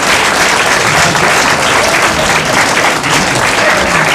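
Live audience applauding, a dense, steady clapping from many hands.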